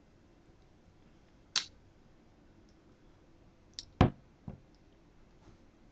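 A few scattered clicks and knocks from objects being handled: a sharp click about one and a half seconds in, then a louder, deeper thump near four seconds in, followed by a smaller knock.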